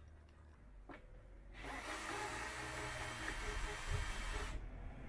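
Cordless drill driver running for about three seconds, undoing a hex bolt on the wheelchair's seat-back bracket. It starts about one and a half seconds in and cuts off suddenly near the end.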